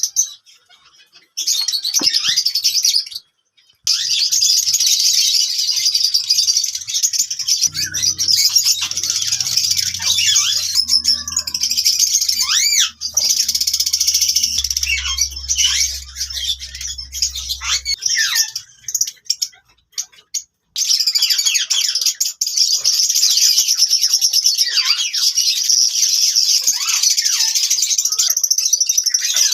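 Lovebirds chattering and chirping in a dense, high-pitched stream of quick, sweeping calls, cut off briefly a few times.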